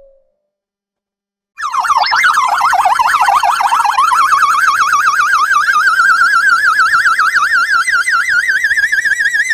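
Cartoon sound effect: a high, warbling whistle-like tone with a fast, even wobble, starting about a second and a half in and slowly climbing in pitch.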